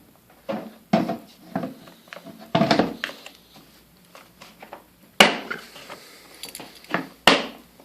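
Knocks and clatter of hard objects being handled, with two sharp knocks about five and seven seconds in; no vacuum motor running.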